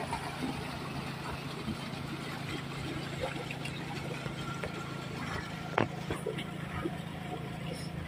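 An engine running steadily with an even low hum, and a single sharp knock about six seconds in.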